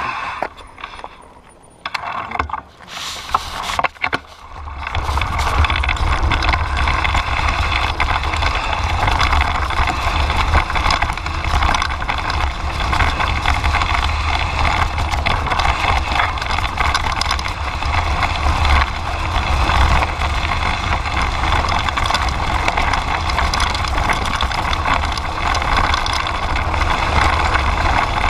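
Kellys Splash mountain bike rolling fast down a dirt forest trail: wind buffeting the body-mounted camera's microphone as a steady deep rumble, with tyre noise on the dirt. The ride noise builds up about five seconds in, after a quieter, patchier start while the bike sets off.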